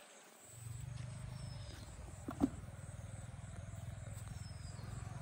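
A steady low rumble with faint high whistles above it and one short sharp knock about two and a half seconds in.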